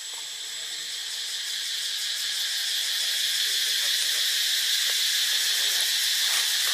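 Forest insects buzzing in a steady, high-pitched chorus that grows louder over the first few seconds and then holds, with a thin high steady tone on top.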